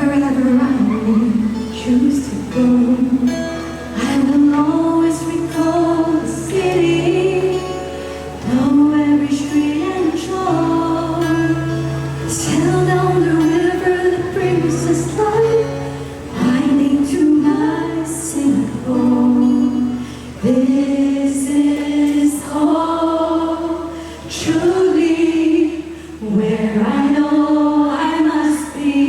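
A vocal group singing a song in harmony: a female lead voice over several sustained backing voices and low held notes.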